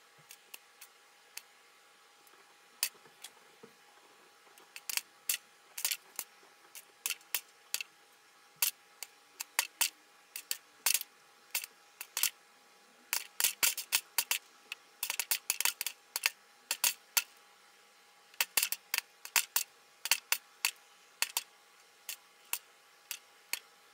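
Popcorn kernels popping in a Junior Chef See-It-Pop toy popcorn popper heated by a light bulb. It starts with sharp single pops a second or more apart, builds to quick clusters of pops in the middle, then thins out again near the end as the batch finishes.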